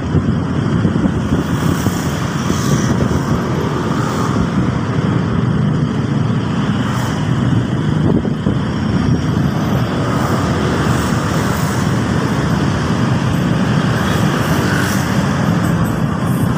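Steady road traffic noise: a continuous mixed rumble of cars and motorcycles passing on a busy road.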